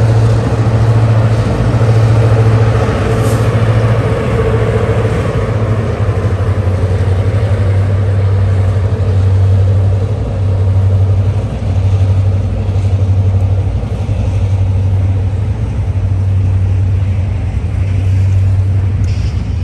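Freight train of tank cars rolling over a railway bridge overhead: a steady low rumble and wheel clatter whose loudness swells and dips every couple of seconds as the cars pass.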